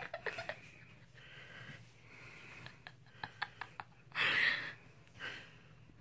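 A woman's quiet, breathy, stifled laughter, with one louder breathy puff of laughter a little after the middle.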